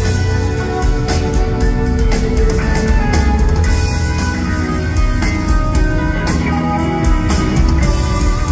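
Live rock band playing an instrumental jam: electric guitars over bass guitar and a drum kit.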